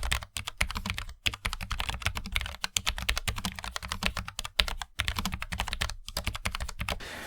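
Fast typing on a Logitech MX Mechanical Mini low-profile mechanical keyboard: a quick, dense run of key clicks with a few brief pauses, stopping shortly before the end.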